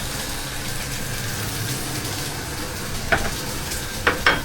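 Food sizzling in a hot pan, with three sharp clacks of a utensil against the pan, one about three seconds in and two close together just after four seconds.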